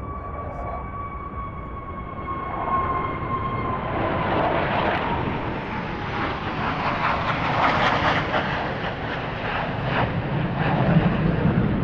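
Sukhoi Su-57 jet fighters flying over. A high engine whine slowly falls in pitch as they pass, while the broad jet noise builds and is loudest about eight seconds in and again near the end.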